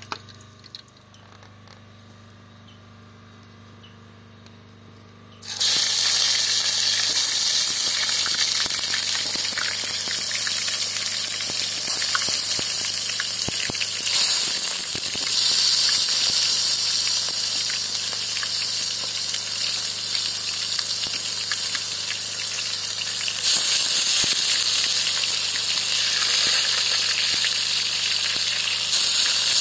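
A low steady hum, then about five and a half seconds in a loud, steady hiss starts suddenly and carries on with small swells.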